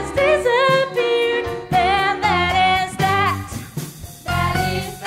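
A cast singing a musical-theatre song with instrumental accompaniment.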